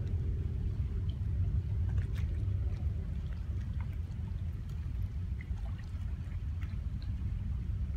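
Distant Falcon 9 rocket's engines heard from the ground as a steady low rumble while the rocket climbs far overhead, easing slightly over the few seconds.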